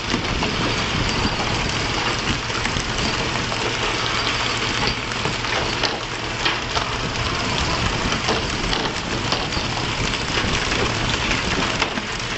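Fishing boat's engine running steadily with a low hum under a constant rush of wind and water, with a few brief knocks.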